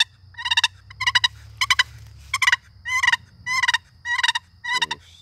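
Long box turkey call, a walnut paddle on a poplar box, being purred: the paddle is pinched tight and dragged across the rail in short strokes. It gives a string of about nine rattling purrs, a little more than half a second apart.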